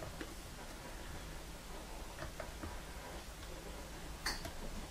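Faint ticks of a homemade lock pick working the pins of an ISEO five-pin euro cylinder lock, with one sharper click about four seconds in. The plug is counter-rotating on spool pins as they are set.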